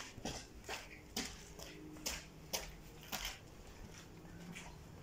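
Footsteps on a gritty, debris-strewn concrete floor, irregular sharp steps about twice a second.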